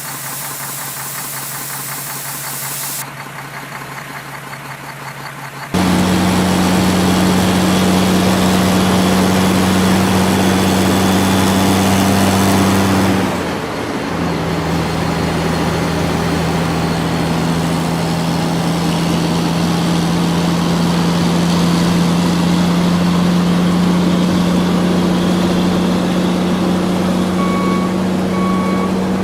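Diesel engines of heavy earthmoving machinery running steadily, growing louder about six seconds in and changing pitch briefly around the middle. A reversing alarm starts beeping near the end.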